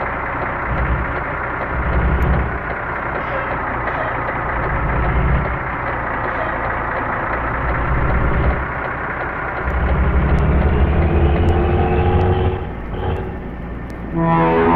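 Economy bus engine running with a deep, rough growl, swelling in loudness several times and loudest for a couple of seconds about ten seconds in.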